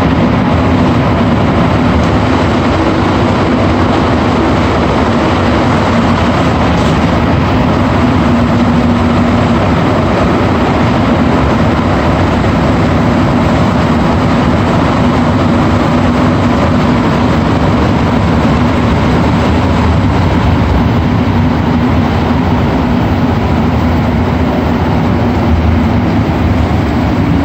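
Montreal metro train running on its rubber tyres through the tunnel, heard from inside the car: a loud, steady rumble with a constant hum underneath.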